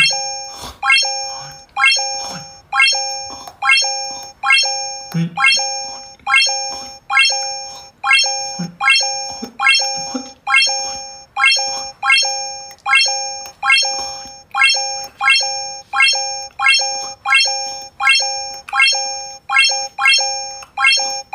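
Electronic game chime from a TikTok face-filter game, a short two-tone beep with a click at the start and a quick fade, repeating evenly about one and a half times a second.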